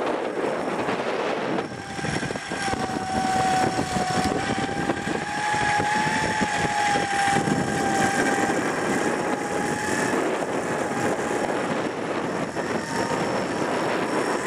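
Off-road 4x4's engine running under load as it crawls over rough muddy ground, with a steady whine that rises slightly in pitch about halfway through and then holds.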